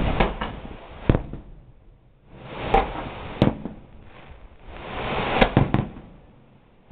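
Fireworks shells bursting in sharp bangs, in clusters every two to three seconds, over swells of rushing noise.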